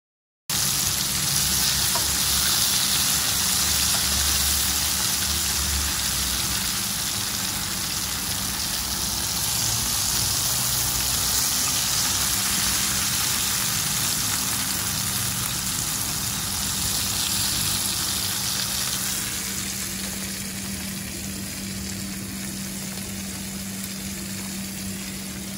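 Battered dori fish fillets deep-frying in hot oil: a steady, dense sizzle that eases off somewhat in the last several seconds, over a faint low steady hum.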